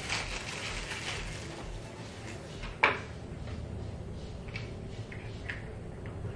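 A small dog-collar light being turned over and fiddled with in the hands: light handling rustle and small clicks, with one sharp, louder click about three seconds in.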